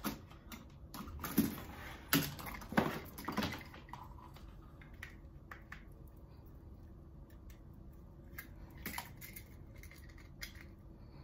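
Scattered light clicks and metallic clinks of hand work on control-panel wiring, with small tools and wire being handled. They come thickly in the first four seconds, then only now and then.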